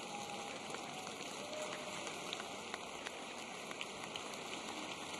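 Audience applauding steadily, a fairly faint even noise of many hands clapping with a few sharper single claps.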